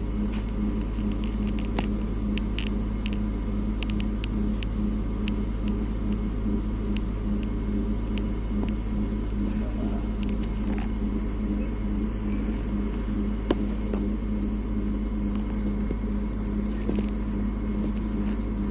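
Steady low hum and running noise of an unmodernized 1965 EN57 electric multiple unit, heard from inside the carriage as it moves slowly, with scattered faint clicks.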